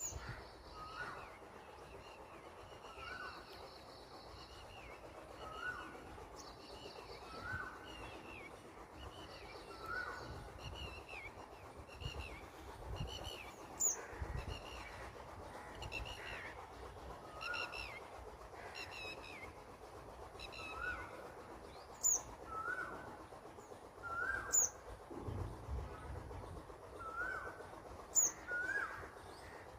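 Several birds calling over each other: a short call repeats about every two seconds, mixed with higher trills and a few sharp, loud high chirps.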